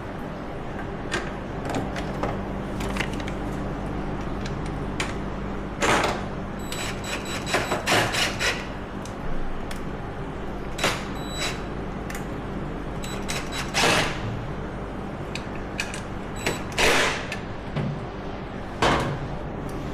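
Metal clinks, knocks and short rattles of hand tools and ATV parts being handled during repair work, a dozen or so scattered through, some with a brief metallic ring, over a steady low background hum.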